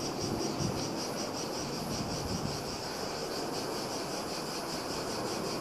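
Insects chirring steadily in a high, finely pulsing band, over a low, even rumble.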